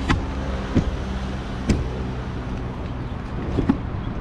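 A motor hums steadily in the background, with a few short knocks and clicks over it.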